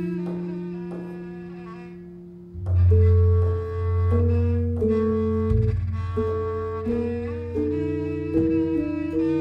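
Javanese gamelan gender, metal keys over bamboo resonators struck with two padded disc mallets, playing a slow two-hand pattern of ringing, overlapping notes in the pelog lima mode. The first notes die away over about two and a half seconds, then a loud deep low note comes in and fresh notes follow about every half second.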